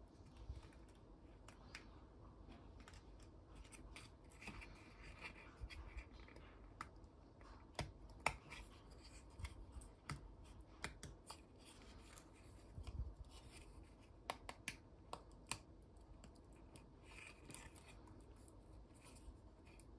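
Faint scattered clicks and scrapes of small plastic parts as a micro display module is pressed by hand into a plastic frame, the sharpest click about eight seconds in.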